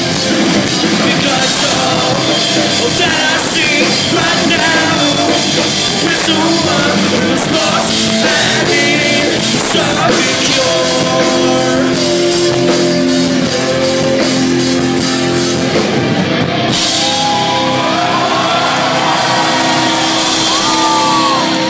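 Live rock band playing loud: electric guitars, drums and singing. From about halfway the guitars hold long steady notes.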